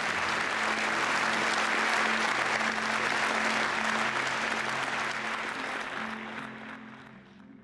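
A crowd applauding, a dense patter of many hands clapping that thins and fades away near the end, with background music of low held notes underneath.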